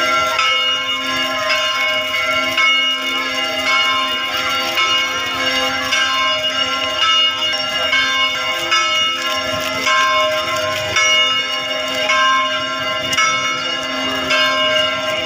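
Church bells pealing, several bells struck over and over so their ringing tones overlap without a break.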